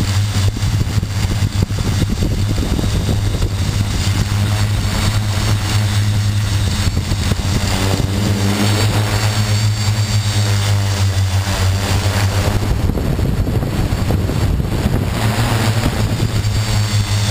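Xaircraft X650 quadcopter's electric motors and propellers running close to the microphone, a loud, steady low hum with a rushing haze over it.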